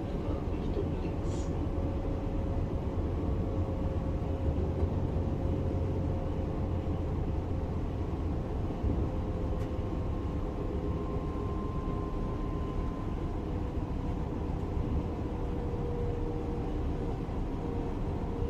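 Class 425 electric multiple unit running on the line: a steady low rumble of the running gear with a faint traction-motor whine that slowly falls in pitch.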